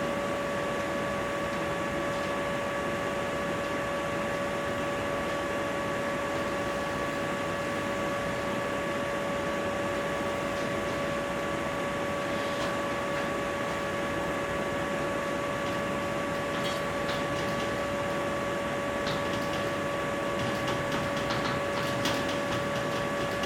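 Steady background noise: a hiss with a constant whine of several steady tones, and a few faint ticks about halfway through and near the end.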